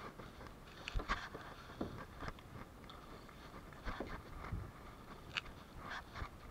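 Kayak paddle strokes close to the microphone: irregular splashes, drips and light knocks as the paddle blades dip and the shaft moves, about nine short crackles spread through.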